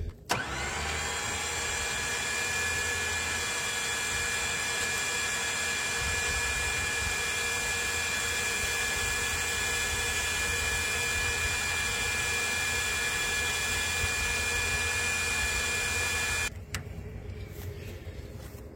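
Electric winch spooling its cable back in under remote control: a steady motor whine that starts just after the beginning and cuts off shortly before the end.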